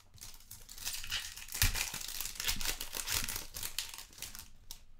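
Foil trading card pack torn open by hand, the wrapper crinkling and ripping for about four seconds, loudest about one and a half seconds in.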